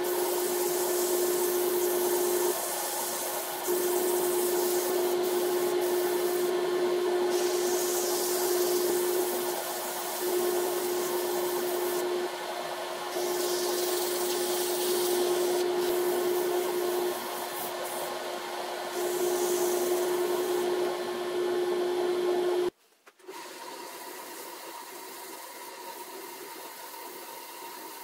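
Wood lathe running with a steady hum while abrasive paper is held against a spinning magnolia hollow form, giving a rubbing hiss that swells and fades several times. About three-quarters through the sound drops suddenly to a quieter hum.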